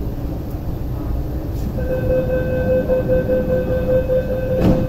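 Door-closing warning tone on an MTR East Rail Line R-train standing at a station: a steady electronic tone starts about two seconds in and holds to the end, over the low hum of the stopped train. A thump comes near the end.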